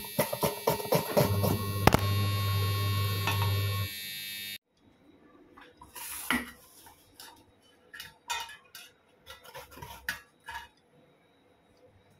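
Background music over quick light clicks and clinks, cutting off suddenly about four and a half seconds in; after that, scattered faint clicks and knocks of handling.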